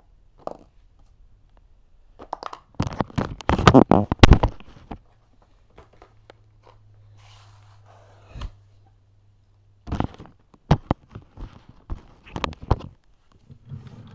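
Handling noise from a hand-held phone: rubbing, knocking and clattering, loudest in a dense burst about three to five seconds in. A low steady hum follows for several seconds, then a run of separate sharp clicks and taps near the end.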